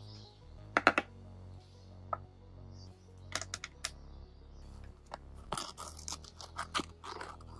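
A cardboard package being torn open by hand, a run of ripping noises through the second half. Before it come a few sharp clicks and taps of items being handled on a wooden tabletop.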